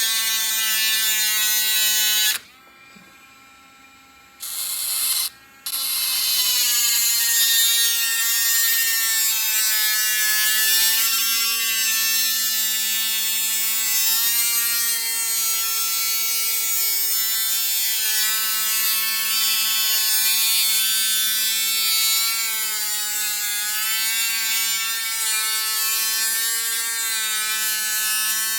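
Dremel Stylo+ rotary tool with a tile-cutting bit running at a steady high whine as it drills into a seashell. The motor cuts out about two seconds in, comes back briefly, then runs on, its pitch wavering slightly as the bit works into the shell.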